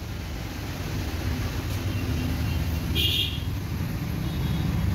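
Steady low rumble of vehicle traffic or engine noise, with a brief high-pitched tone about three seconds in.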